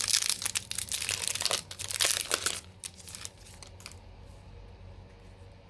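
Foil wrapper of a Topps baseball card pack being torn open and crinkled by hand for about two and a half seconds. After that, only faint handling sounds.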